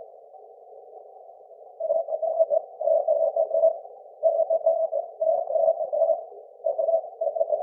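Morse code (CW) on 6 metres received by aurora on a FlexRadio AU-520 transceiver: a tone near 600 Hz keyed in groups of dots and dashes after about two seconds of low filtered hiss. The note is smeared and spread rather than clean, the hoarse sound typical of auroral propagation, heard through a narrow CW filter with noise reduction.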